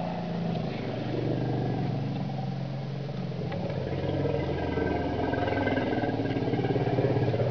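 A vehicle's engine running steadily, its low hum settling slightly lower about three seconds in.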